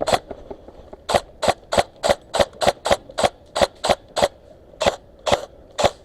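Airsoft gun firing single shots in a steady rhythm, about three a second, after one lone shot at the start.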